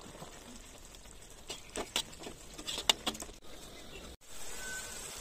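Metal cookware clinking and scraping against a steel kadai, with a cluster of sharp knocks about two seconds in. After a brief cutout comes a steady hiss.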